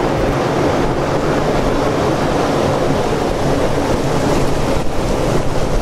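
River rapids rushing around a drift boat as it runs through a riffle: a steady, loud wash of churning water.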